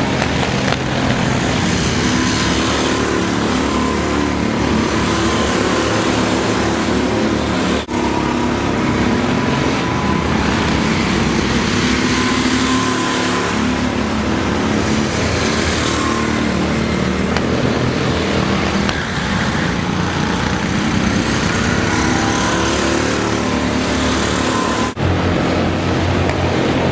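Go-kart engines running continuously at race pace, their pitch rising and falling as the karts accelerate and slow, with two very brief drops in the sound.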